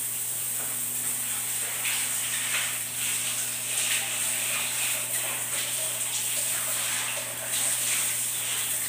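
Shower water running, spraying steadily down onto a person in a small tiled bathroom: an even hiss with a low steady hum underneath.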